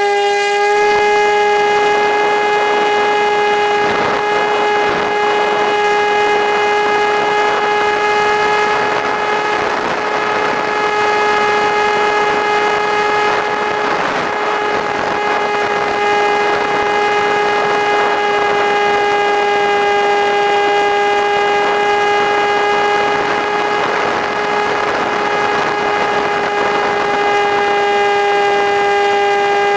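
Stryker F-27B electric flying wing's motor and pusher propeller in flight, heard from the onboard camera: a loud, steady high whine at nearly constant pitch, over a rush of air.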